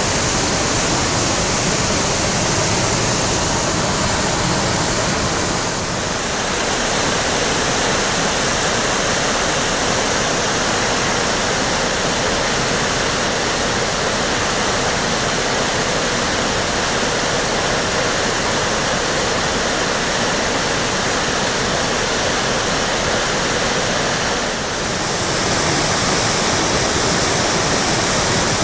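Brugent river in flood, muddy water rushing and churning over boulders and a low fall, a loud, steady rush of white water. The level dips briefly about six seconds in and again near the end.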